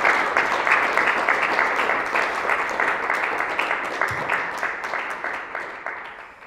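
An audience applauding with dense clapping that gradually dies away near the end.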